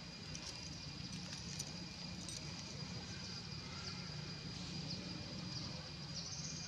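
Steady outdoor background noise: a continuous low rumble with a faint high, steady whine over it, and a few soft clicks in the first couple of seconds.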